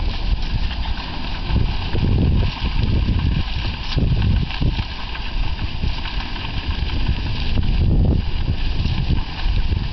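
A team of horses pulling a corn binder: hoofbeats and harness over the steady running noise of the machine.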